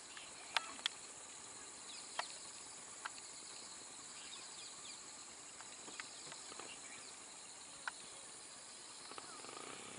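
Steady high-pitched drone of insects, with about half a dozen sharp, short clicks scattered through it.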